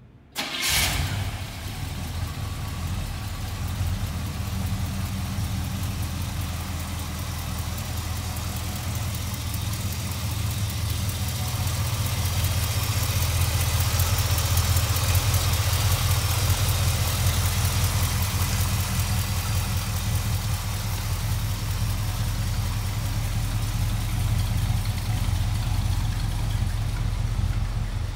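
1969 Chevrolet C10 pickup's V8 engine firing up about half a second in and then idling steadily.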